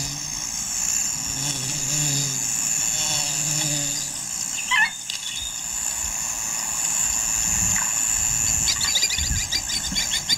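Bush ambience: a steady high-pitched insect drone throughout, with a short bird call about halfway and rapid chattering calls near the end. A low humming tone runs through the first few seconds.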